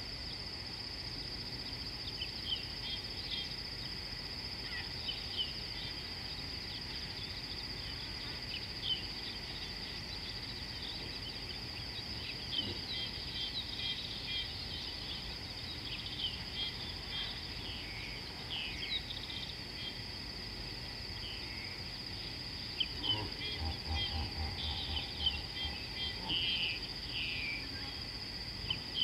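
Steady high-pitched insect drone with many short bird chirps and calls over it. About 23 seconds in, a low pulsing sound joins briefly for a few seconds.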